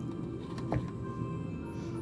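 Quiet background music with sustained tones, and a single faint click about three-quarters of a second in.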